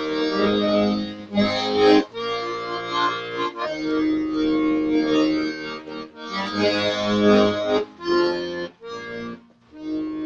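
Instrumental break in a song: sustained chords on a single instrument, played in phrases separated by brief pauses, with no singing.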